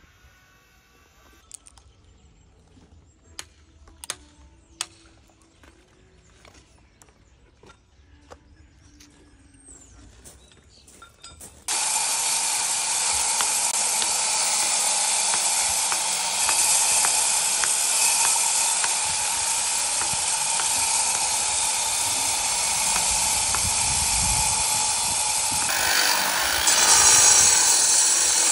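A few faint sharp knocks, then about twelve seconds in a loud steady power-tool noise starts suddenly: an angle grinder cutting into a stone block. It grows louder and brighter near the end.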